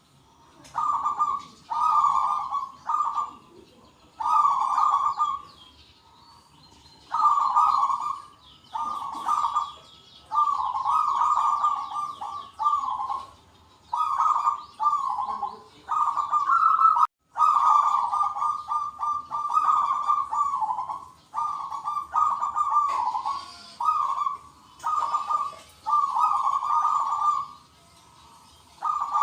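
Zebra doves cooing in the rapid, rattling perkutut style: bursts of quick coo notes repeating one after another, several birds calling back and forth. Thin, high chirps of other small birds sound over them.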